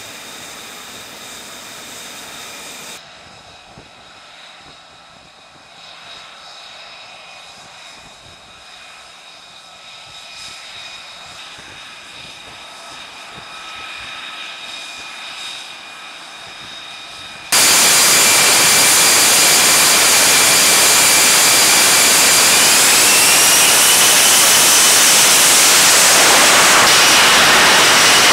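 F-35B's Pratt & Whitney F135 turbofan jet engine. At first it is a fairly quiet jet whine with several steady tones. More than halfway through it jumps suddenly to loud, dense jet noise, and a few seconds later its whine tones rise in pitch as the engine spools up.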